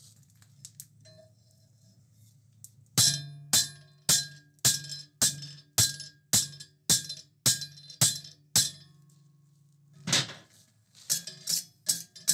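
Hand hammer striking hot 12 mm round steel held in a spring swage on the anvil, texturing the bar. About eleven ringing blows come roughly two a second, starting about three seconds in. After a short pause, a few quicker blows follow near the end.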